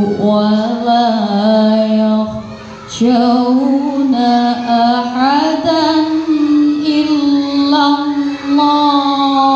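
A woman's voice in melodic Quran recitation (tilawah) into a microphone, with long held notes that glide and wave in pitch. A short breath pause comes about two and a half seconds in, then the recitation resumes on a higher note.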